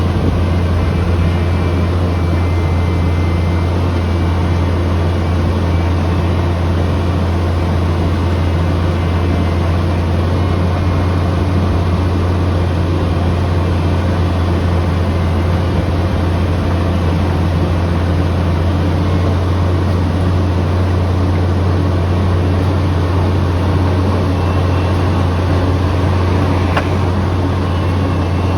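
Apollo A900 horizontal directional drilling rig running steadily, its diesel engine giving a continuous deep drone.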